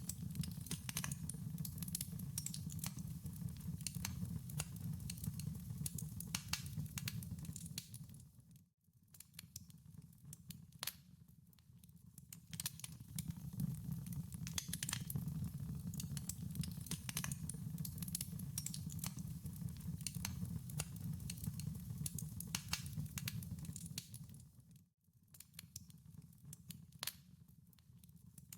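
Wood fire crackling in a fireplace: a steady low rumble of the flames with many irregular sharp pops and snaps. The sound drops away briefly twice and then returns.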